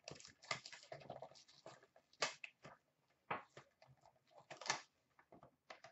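Trading-card pack wrappers faintly crinkling and tearing as packs are ripped open by hand, in scattered short crackles with a few sharper rips.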